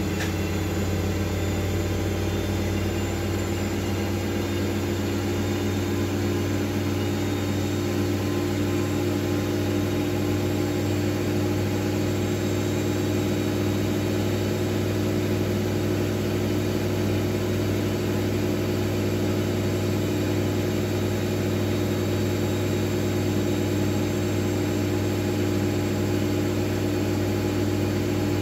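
Miele W433S front-loading washing machine spinning its drum at a constant speed, a steady motor hum with a whine above it that holds even.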